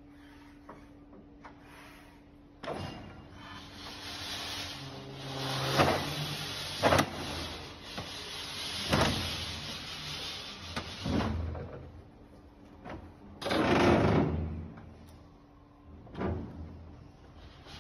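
A pallet exchanger and an electric reach truck at work. A steady low hum stops a few seconds in, giving way to a long noisy stretch of machine running and a pallet scraping as it is pushed under a stack of beverage crates, broken by several sharp knocks. Two more loud spells of machine noise come near the end.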